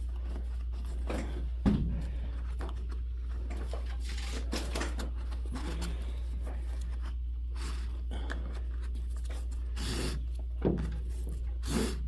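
Drum rope being worked loose from a vintage rope-tensioned bass drum: faint rubbing and scraping of cord against the wooden hoops, a sharper knock about two seconds in and a few short scrapes near the end, over a steady low hum.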